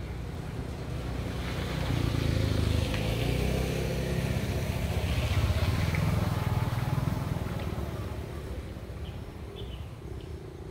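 A passing motor vehicle's engine, growing louder from about two seconds in and fading away by about eight seconds.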